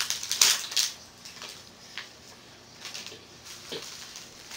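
Small clear plastic packaging bag crinkling as it is handled, a cluster of loud crackles in the first second, then scattered softer rustles.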